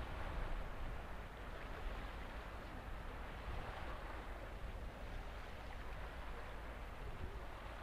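Steady wash of water and low rumble of a Sachsen-class (F124) frigate under way, its wake churning at the stern, with some wind on the microphone.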